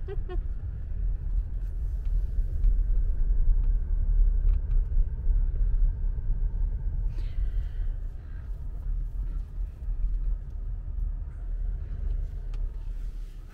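Low rumble of a car driving slowly, heard from inside the cabin: engine and tyre noise, with a few faint clicks.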